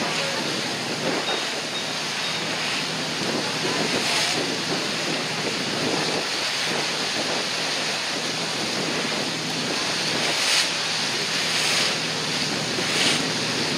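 Steady rush of wind on the microphone and sea water from a moving boat, with a few brief louder rushes, mostly in the second half.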